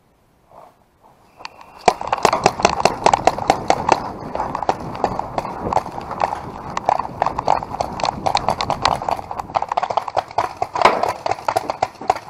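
Paintball markers firing: a dense, continuous string of sharp pops that starts about two seconds in, many shots a second.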